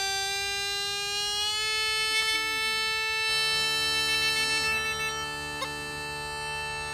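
Irish uilleann pipes playing one long held note that slides slightly up in pitch, with a low drone coming in about halfway through.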